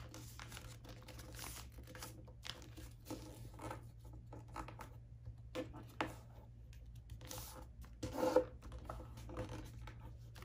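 A sheet of letter-size junk-mail paper being folded by hand and creased flat against a wooden table: quiet, intermittent rustling and scraping of paper, with a louder rustle about eight seconds in.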